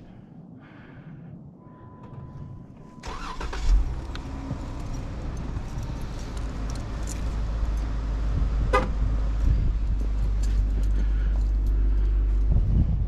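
A car's engine starts about three seconds in, after a steady electronic chime, then runs with a steady low rumble that grows louder.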